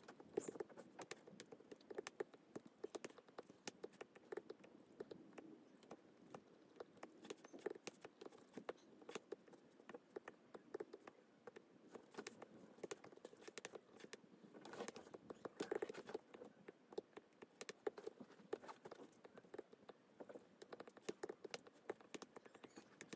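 Faint, rapid, irregular taps and scratches of a disc-tip stylus on a tablet's glass screen as it draws coloring strokes, thickening into a denser scratchy run about two-thirds through.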